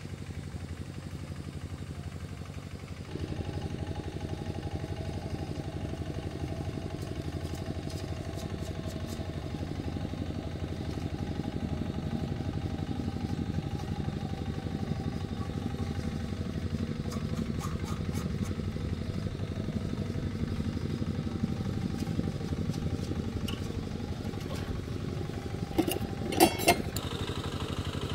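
Single-cylinder diesel engine of a two-wheel walking tractor running steadily, getting louder about three seconds in. A few sharp metallic clanks come near the end.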